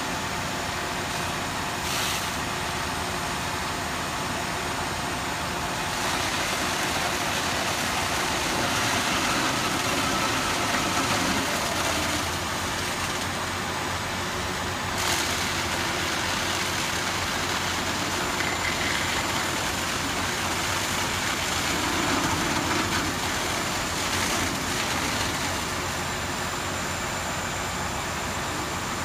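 Steady engine noise from fire apparatus at work, with a hiss over it, as hose streams play on the wreck; the noise swells for several seconds twice. Two brief knocks stand out.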